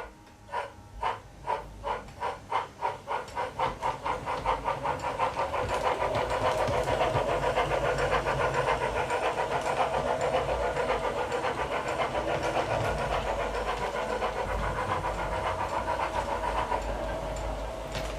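Sound decoder in an LGB garden-scale steam locomotive model playing steam exhaust chuffs through its onboard speaker as the model pulls away. The chuffs start slowly and quicken steadily, running together into a fast, even beat after about six seconds.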